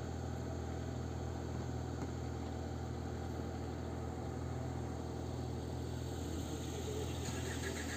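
A steady low hum like an engine idling.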